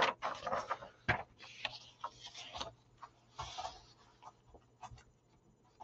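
Faint, scattered clicks and soft rustles, a dozen or so short ticks at irregular intervals.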